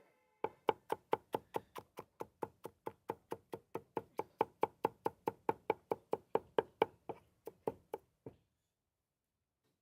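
Rapid, even knocking on a wooden board during food preparation, about five strokes a second for roughly eight seconds, then stopping.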